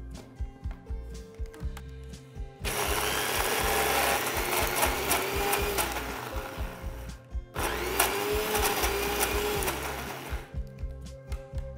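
Electric mixer grinder running in two short bursts, about four seconds and then three, with a brief stop between, coarsely crushing soaked green gram with ginger, curry leaves and green chillies, no water added. Background music plays under it.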